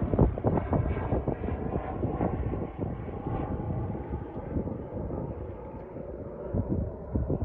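Light propeller airplane's engine at takeoff power, fading as the plane climbs away after lift-off.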